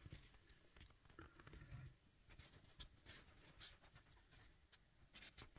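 Near silence: room tone with a few faint, soft clicks scattered through it.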